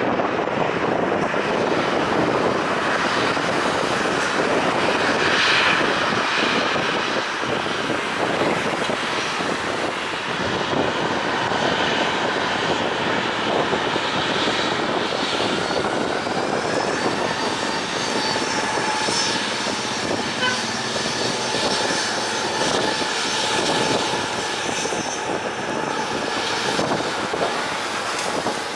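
Boeing 737 airliner's twin jet engines at low taxi power: a steady rush of jet noise with a thin high whine over it that shifts slightly in pitch as the aircraft passes.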